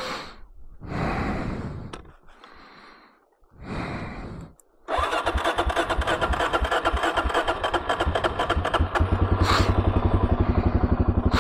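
Suzuki DR-Z's electric starter cranking in four short bursts, then the single-cylinder four-stroke engine catches about five seconds in and settles into a steady, evenly pulsing idle.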